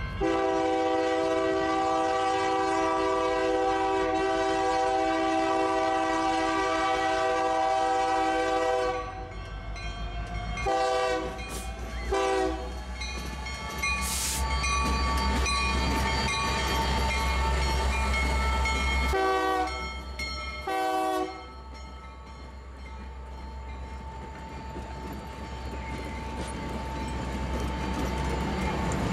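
A train horn sounds one long chord of about nine seconds, then two short blasts and, after a pause, two more short blasts. Under the short blasts runs the deep rumble of a passing train.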